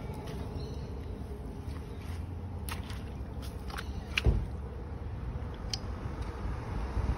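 Boots stepping on soft, wet ground, then a few light clicks and a dull knock about four seconds in as the water meter fittings are handled, over a steady low outdoor rumble.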